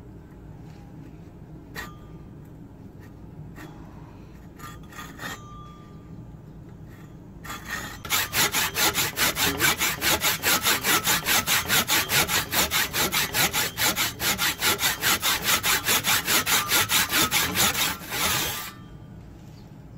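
Hand saw cutting through the end of a wooden axe handle held in a vise, in quick, even back-and-forth strokes lasting about ten seconds and stopping shortly before the end. A few light knocks come before the sawing starts.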